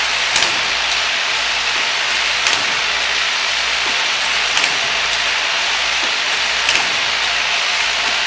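Child-resistant cap assembly and lining machine running: a steady hiss with a sharp mechanical clack about every two seconds and fainter clicks in between.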